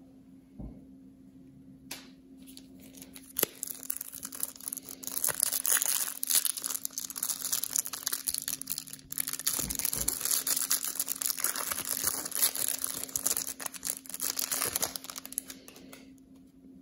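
Trading-card pack wrapper crinkling and tearing as hands rip it open. The crackling starts about two seconds in and runs for about thirteen seconds, stopping shortly before the end.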